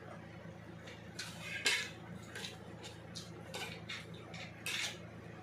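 Eating utensil clicking and scraping against a dish during a meal: about six short clatters, the loudest a little under two seconds in, over a steady low hum.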